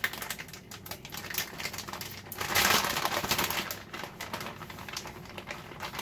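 Plastic bag of shredded cheese being handled, crinkling with many small clicks and crackles, loudest about two and a half seconds in.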